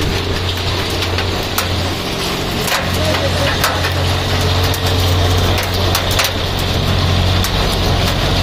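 Hailstones ticking irregularly against hard surfaces, over a steady low engine hum that gets a little louder in the second half.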